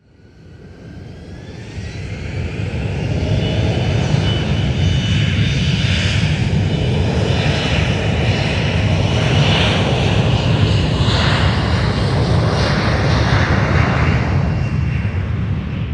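Aircraft engine running steadily: a loud low rumble with a high whine that rises in pitch over the first few seconds and then holds level. It fades in from silence at the start and fades out at the end.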